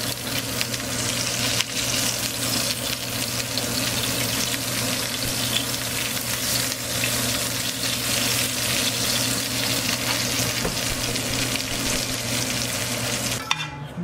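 Pork rack chops sizzling steadily as they fry in fat in a stainless steel pan, over a low steady hum; the sizzle cuts off near the end.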